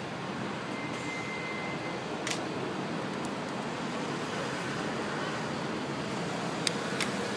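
Steady city traffic noise, broken by a few sharp clacks, one about two seconds in and two close together near the end, from the Evzone guards' hobnailed shoes striking the pavement in their ceremonial step.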